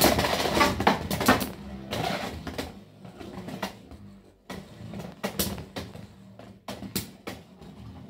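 Two Beyblade X spinning tops clashing in a plastic stadium: a dense run of sharp plastic-and-metal clacks and scrapes in the first two seconds, then sparser single clacks as they circle and hit each other and the stadium wall.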